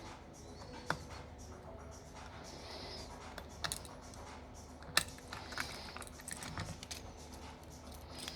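Light, sparse clicks and taps of small repair tools on a smartphone's internal parts during disassembly, the sharpest about five seconds in.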